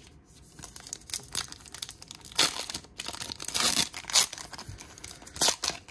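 Foil wrapper of a Topps baseball card pack being torn open by hand: irregular bursts of crinkling and tearing that start about half a second in.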